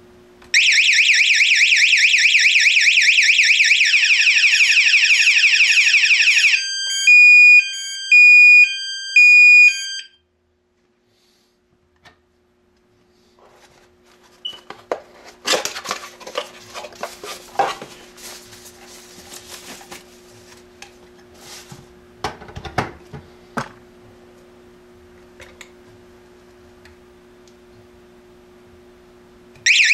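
AAS wireless indoor alarm siren sounding: a loud, fast-warbling electronic alarm tone for about six seconds, then three loud beeps, then it stops. Scattered clicks and knocks follow over a faint steady hum, and the warbling siren starts again near the end.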